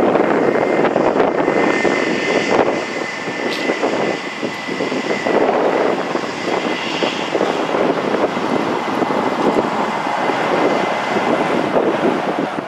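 Jet engines of an Airbus A320-232 (IAE V2500 turbofans) running at low power as the airliner taxis: a steady, loud rushing with a thin, high whine held throughout.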